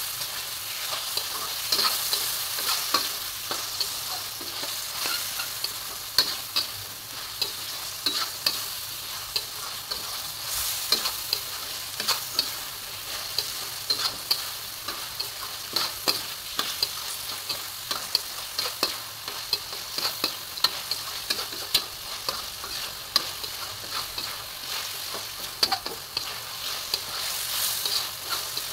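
Frog meat frying and sizzling in oil in a metal wok, with a steady hiss. A metal spatula scrapes and clinks against the wok many times at irregular intervals as it stirs.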